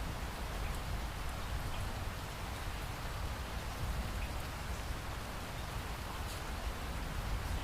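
Steady rain falling, an even hiss with a low rumble underneath and scattered faint drop ticks.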